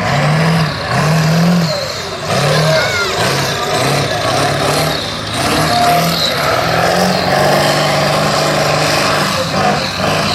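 Mega truck engine revving in a series of short blips, then holding a steadier, higher rev for the last few seconds.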